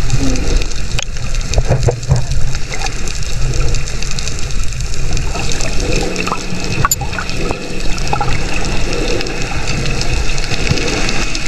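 Sea water sloshing and gurgling loudly and irregularly while snorkeling in choppy water.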